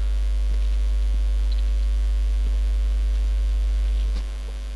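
Steady deep electrical mains hum with its overtones, picked up in the recording. It drops a little in level about four seconds in.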